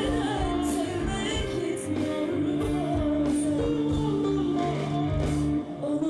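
Live pop band playing, with electric guitar, bass, keyboards and drums.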